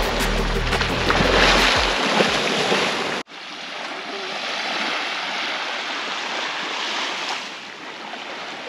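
Shark thrashing and splashing in shallow water at the shoreline. About three seconds in, it cuts abruptly to small waves lapping gently on a sandy beach.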